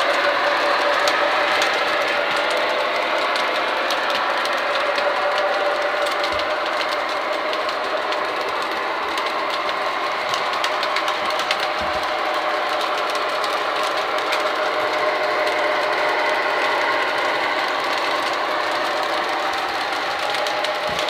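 Three-rail O-gauge model trains running on the track: a steady whir of locomotive motors and gearing, its pitch drifting slowly, with many fine wheel clicks over the rails.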